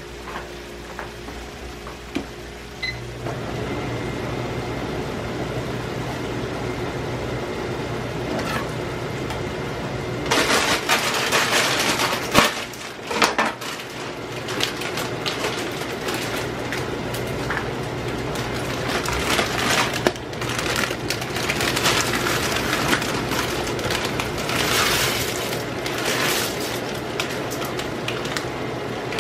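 Diced beef sizzling and crackling in a frying pan on high heat, with irregular pan and utensil clatter over a steady low background hum.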